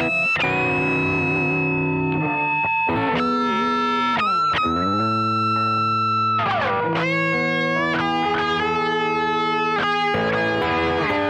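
Electric guitar played through distortion and effects: held lead notes and chords with vibrato. A few times, about four and six seconds in, the whole chord swoops down in pitch and back up with the tremolo bar.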